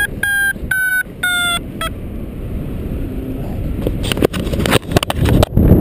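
Paragliding variometer beeping quickly, about three beeps a second: its climb tone, the sign of lift in a thermal. The beeps stop about two seconds in. Then wind rushes over the microphone and grows louder toward the end, with a few sharp knocks.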